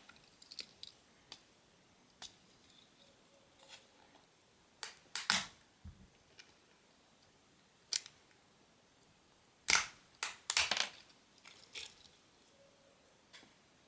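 Scattered sharp clicks and small scrapes of a small tool prying a part out of a Nokia 6630 mobile phone, with a quick run of clicks about ten seconds in.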